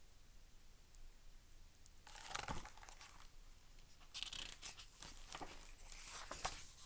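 Pages of a picture book being handled and turned: a brief paper rustle about two seconds in, then more rustling and handling of the pages from about four seconds in until shortly before the end.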